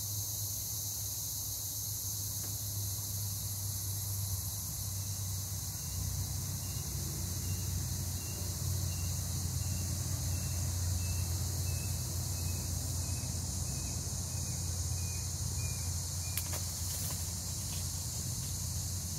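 Steady high-pitched chorus of insects over a low steady rumble. Through the middle a faint run of short, evenly spaced chirps, about two a second, drifts slowly down in pitch, and a couple of clicks come near the end.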